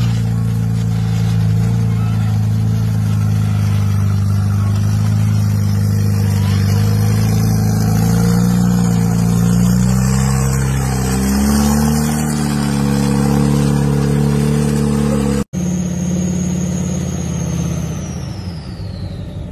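Rock crawler buggy engine held at high, steady revs as it climbs a rock ledge, dipping and then rising in pitch about eleven seconds in. It cuts off abruptly near the end and gives way to another vehicle engine, with a high whine that falls in pitch.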